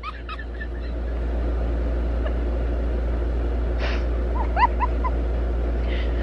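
A steady deep hum runs throughout. About four and a half seconds in comes a brief cluster of four or five short, squeaky, rising sounds.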